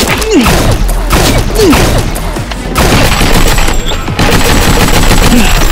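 Rapid bursts of gunfire sound effects, dense and continuous, with background music underneath and a few falling swooping effects.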